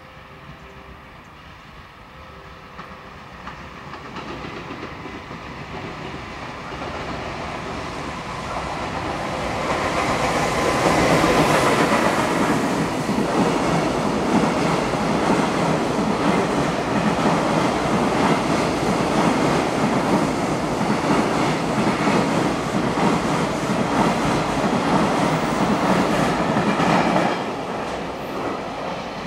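EF210 electric locomotive and its freight train passing through a station, wheels clattering over the rail joints. The sound builds over about ten seconds as the train comes in, then a long clickety-clack as the wagons run by. It drops off sharply near the end as the last wagon passes.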